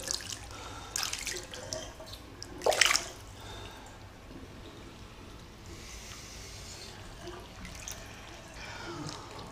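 Bathwater sloshing and dripping around a person moving in a partly filled tub, with a couple of louder splashes, the biggest about three seconds in.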